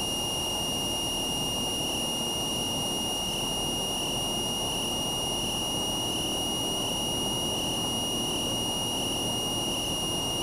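Cessna 172's engine and propeller running steadily at full takeoff power during the lift-off and initial climb, heard from the cockpit, with a steady high whine over the drone.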